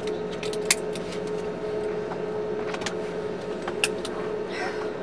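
Cabin sound of an Airbus A320neo taxiing with its CFM LEAP-1A engines at idle: a steady hum, broken by a few sharp clicks and rattles.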